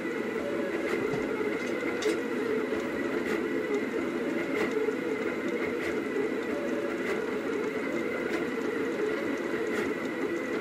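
Rostock delta 3D printer running: a steady whir from its motors with a high, even hum over it, and a faint click about every second and a quarter.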